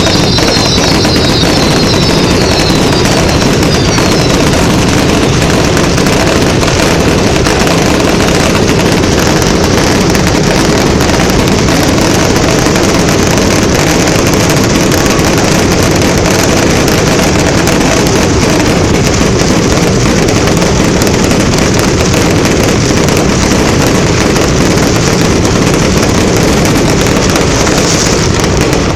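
A dense, continuous barrage of fireworks going off, with bangs and crackle running together into one unbroken, very loud din.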